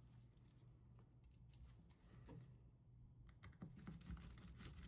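Faint, scattered light clicks and taps of small hand tools and parts being handled, as a 1.5 mm hex bit is fitted to a screwdriver.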